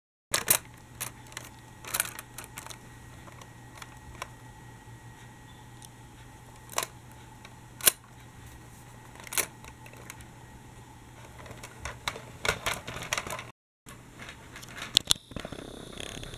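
Scattered sharp plastic clicks and taps from a Dickie Toys City Liner toy tram being handled and pressed, over a faint steady hum.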